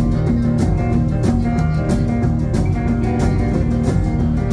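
Live rockabilly band playing an instrumental passage: electric guitars, bass guitar and a drum kit keeping a steady beat.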